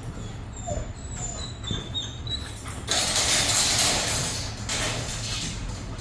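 A German Shepherd whining in a wire kennel, over-excited at the kennel gate. About three seconds in, a louder burst of rattling noise lasts a second and a half as she jumps against the wire.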